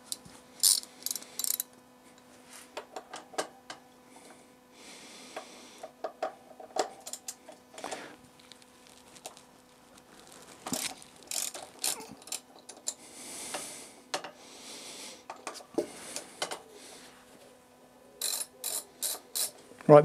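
Socket ratchet clicking as a T45 Torx bit loosens a front axle pinch bolt on a BMW R1200 GS Adventure's fork. The clicks come in short rapid runs between pauses, densest at the start and again near the end.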